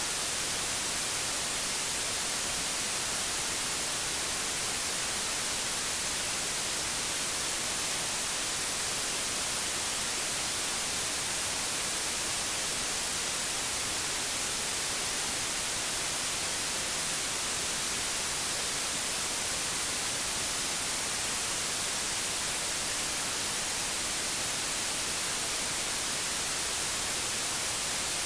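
Steady white noise: an even, unbroken hiss that does not change, brightest in the high treble.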